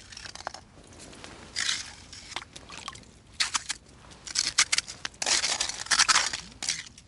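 Irregular bursts of wet crunching and scraping, like icy slush being worked, loudest and densest in the second half.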